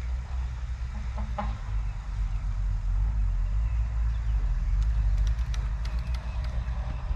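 Wind buffeting the microphone with a steady low rumble. A brief animal call comes about a second in, and a few sharp clicks come near the end.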